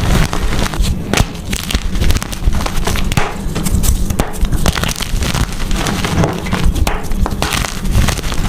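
Blocks of gym chalk being crushed by hand, with a dense, unbroken run of crunching and crumbling crackles.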